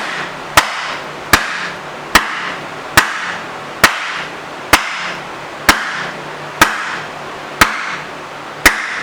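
Big hammer striking the rust-seized tailstock of a Monarch 10EE lathe in a steady run of about eleven sharp blows, each with a short ring, driving it loose along the ways.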